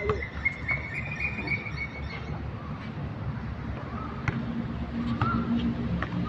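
Outdoor ambience: birds chirping in short rising-and-falling calls, over a steady engine hum of traffic that grows in the second half, with a couple of faint taps.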